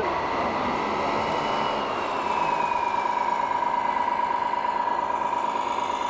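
Small electric motors of radio-controlled model trucks whining. A steady whine grows stronger about two seconds in, and a second, higher whine slowly falls in pitch.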